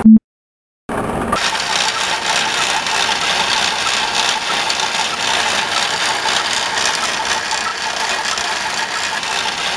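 A short, loud low-pitched beep, then a second of silence, then a steady mechanical whirring rattle that runs on.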